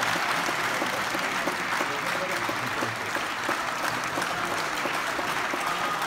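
Concert hall audience applauding steadily.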